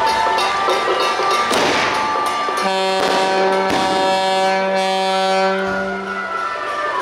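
The royal-boat float's horn sounds one steady, low tone for about four seconds, starting a little over two and a half seconds in, over loud festival music with crashing percussion.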